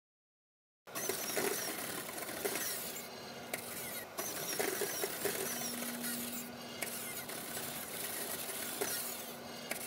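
Test rig of a pneumatically driven soft robot arm running, played back at double speed: a steady rush of air with scattered clicks, starting about a second in. A steady low hum joins about five seconds in.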